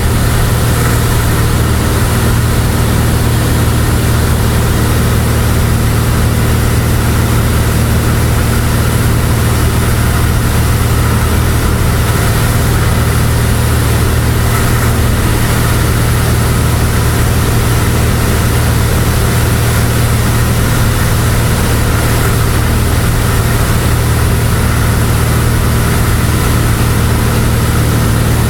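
Cessna 172's piston engine and propeller running steadily in flight, heard inside the cabin as an even, unchanging drone with a strong low hum.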